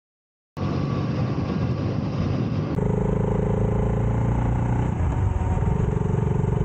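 A 2012 Triumph Bonneville T100's 865 cc parallel-twin engine running while the bike is ridden, cutting in abruptly after half a second of silence. The sound changes suddenly about three seconds in, as at an edit, and the engine note dips briefly around five seconds in.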